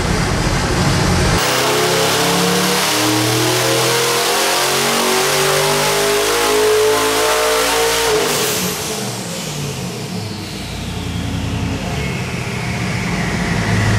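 Twin-turbocharged 6.2-litre Chevrolet LS V8 with NRE Gen 2 60 mm mirror-image turbos on an engine dyno making a wide-open-throttle pull. About a second and a half in, the revs start climbing steadily for about six seconds, to around 6,000 rpm under load. The throttle then closes and the engine drops back to idle while the turbos whistle down in pitch as they spool down.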